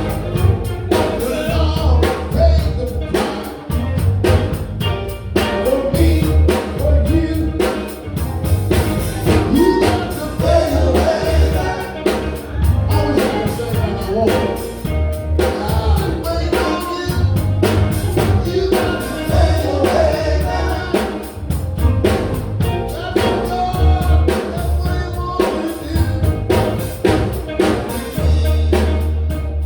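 Gospel group singing with a live band: drum kit, a heavy bass line and instrumental backing, played steadily throughout.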